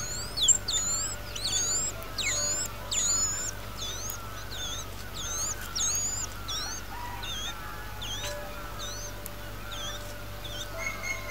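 Birds calling: a quick series of short, high whistled notes that hook sharply in pitch, about two a second, loudest in the first three seconds and thinning out afterwards, over a softer, lower repeated chatter.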